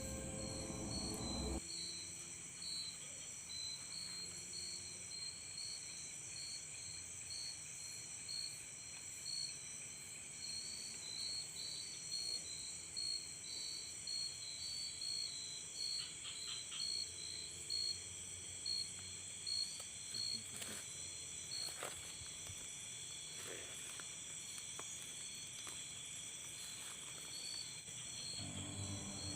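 Chorus of insects: a steady high-pitched trilling, with one call pulsing about twice a second over it. A few faint ticks come partway through.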